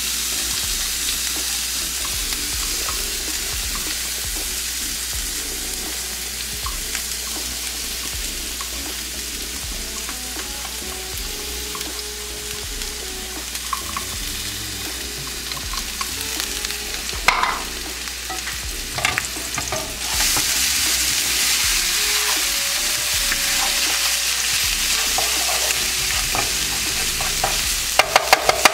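Minced garlic sizzling in hot oil in a non-stick frying pan as it is stirred with a wooden spatula. The sizzle grows louder about two-thirds of the way through, and the wooden spatula clicks against the pan a few times, several times quickly near the end.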